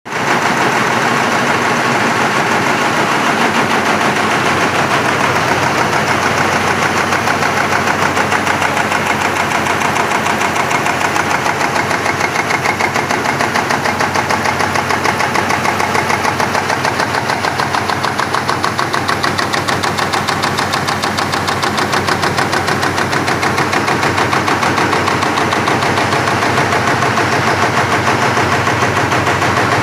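A 45-ton high-speed punching press running continuously, stamping metal strip fed from a coil, in a fast, even rhythm of strokes.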